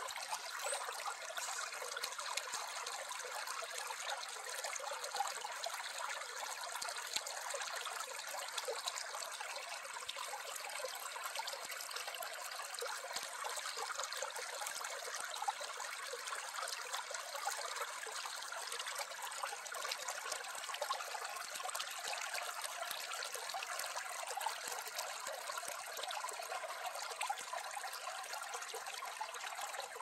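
Shallow mountain stream trickling and babbling over rocks, a steady rush of water with small splashes.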